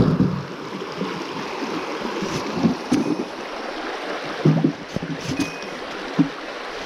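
River water rushing steadily over a stream bed, with four short low bumps scattered through it.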